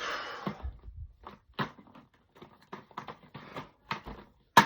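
Plastic pieces of a giant Rubik's cube clacking as it is handled: a short rustle, then a run of irregular clicks and clacks, with one sharp, loud click near the end.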